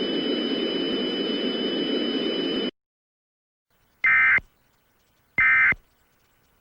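Steady static hiss with a faint high whine under it, cutting off suddenly about two and a half seconds in. After a second of silence come two short warbling data bursts about a second and a half apart: Emergency Alert System end-of-message tones.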